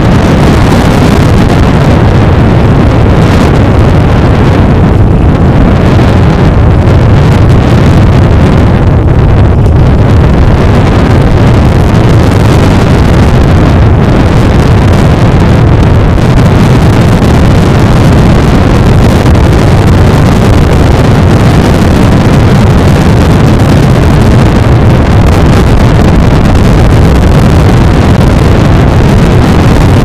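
Cessna 208 Caravan's PT6A turboprop engine running steadily at taxi power, with heavy wind buffeting the microphone.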